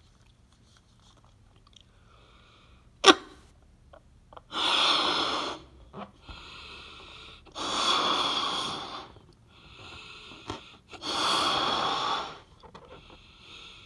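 Someone blowing up a rubber balloon by mouth: three long, forceful breaths blown into it, about three seconds apart, with quicker breaths drawn in between. A single sharp snap comes about three seconds in, before the first breath.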